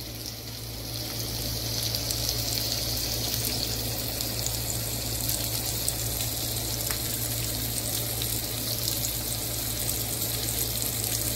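Seasoned chicken chunks sizzling in a nonstick frying pan over medium heat: a steady hiss that builds over the first couple of seconds and then holds, with a low steady hum underneath.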